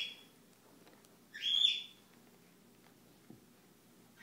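Six-week-old kitten giving short, high-pitched mews, each rising and then holding briefly: one trails off just after the start and another comes about a second and a half in.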